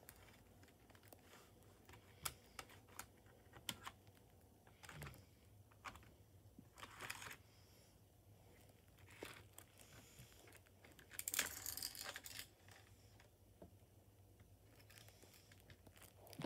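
Near silence with handling noise: scattered faint clicks and a few short rustles, the longest about eleven seconds in.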